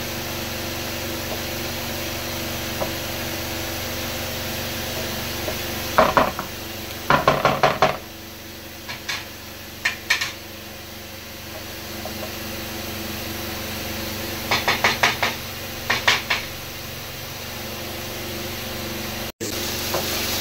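Food frying in a pan with a steady sizzle, while a wooden spatula stirs it, scraping and tapping against the pan in several short runs of quick strokes.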